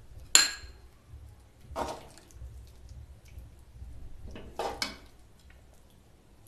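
Metal ladle scooping thick chickpea-and-paneer curry out of a steel kadhai: one sharp metallic clink just after the start, then softer scrapes and wet scoops about two seconds in and again near five seconds.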